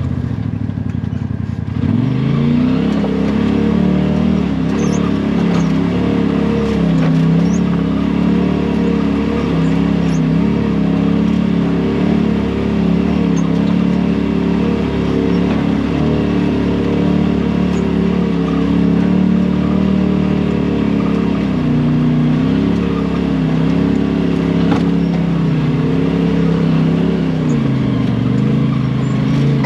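Off-road side-by-side's engine running while driving, its pitch mostly steady. The engine climbs back up about two seconds in after a dip, then sags and recovers briefly twice near the end as the throttle changes.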